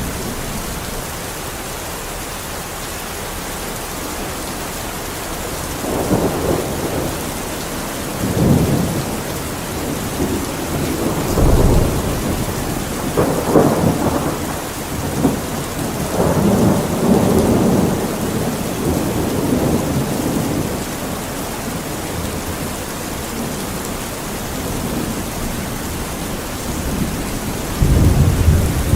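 Steady heavy rain with rolling thunder: several low rumbles swell and fade in the middle, and another begins near the end.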